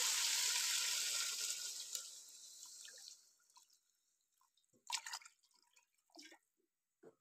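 Water being poured into a hot pan of frying potatoes, peas and masala, the pouring noise fading away over about three seconds, followed by a few faint clicks.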